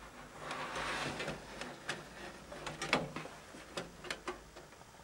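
A CD-ROM drive being slid into a PC case's drive bay: a scraping slide in the first second or so, then several separate sharp clicks and knocks as it seats.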